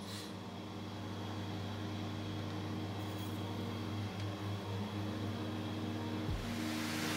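Induction cooktop humming steadily with a faint high whine while it heats a pot of water. A hiss from the heating water swells near the end as it works toward a boil.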